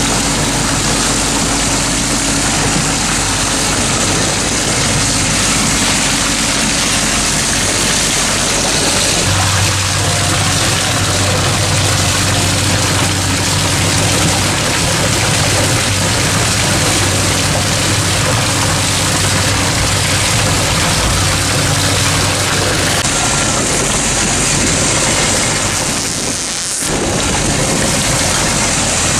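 Hydroseeder running during tank mixing: steady engine noise with water churning in the tank. A low hum comes in about nine seconds in and drops out about two-thirds of the way through. The noise dips briefly near the end.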